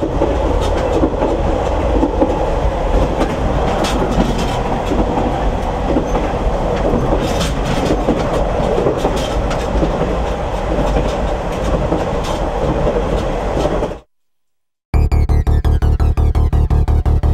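Train running, heard from inside a passenger carriage: a steady rumble with scattered clicks of the wheels. It cuts off suddenly about 14 seconds in, and after a second of silence a fast, even electronic pulse begins the song.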